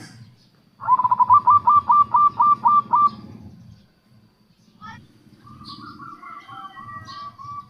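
Zebra dove (perkutut) cooing: a quick, loud run of about nine short notes, each ending in an upward flick. About two seconds later comes a longer, fainter run of notes.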